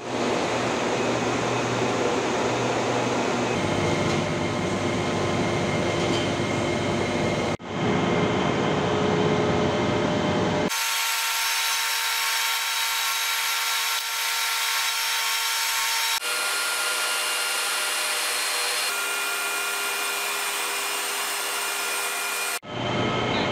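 Loud, steady industrial machinery noise in a power-plant turbine hall, with a few steady hum tones in it. The sound changes abruptly four or five times and drops out briefly twice.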